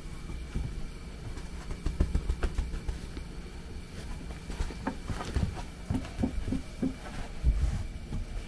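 A Kooikerhondje puppy playing, making irregular bumps, scuffles and knocks, with a few short low sounds between about six and seven seconds in.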